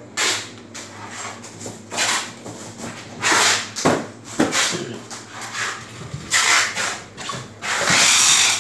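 Styrofoam boxes being handled: a series of short rubbing and scraping noises, about six, the longest near the end.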